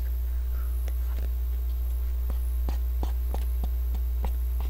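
Eating ice cream from a tub with a spoon: a string of short mouth and spoon clicks, about two or three a second, starting about a second in, over a steady low hum.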